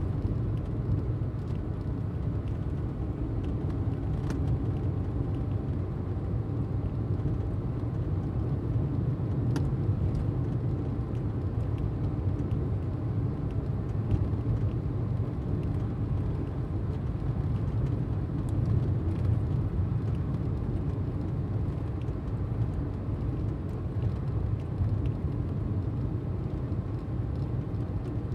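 Steady low road and engine rumble heard from inside a car's cabin, cruising at about highway speed.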